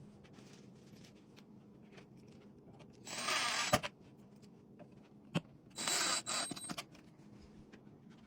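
Screws being driven into the wooden shelf pieces: two short grinding bursts, one about three seconds in and one near six seconds, with a few sharp clicks around them.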